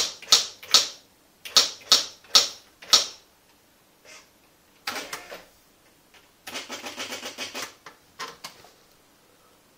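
Commodore SQ-2000 electronic typewriter printing as a word is typed, with about seven sharp strikes in the first three seconds. About five seconds in comes a short mechanical burst, then a longer rattling run of rapid clicks from the mechanism for just over a second, and a couple of light clicks after it.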